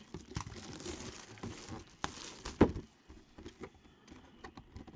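Plastic shrink wrap crinkling and tearing as it is pulled off a hobby box, with one loud knock of the box on the table about two and a half seconds in, then a few light taps and rustles.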